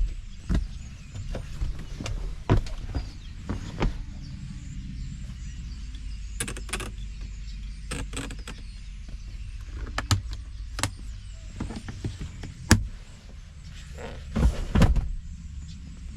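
Scattered clicks and knocks of the Jeep Wrangler's doors and controls being worked, over a steady low rumble.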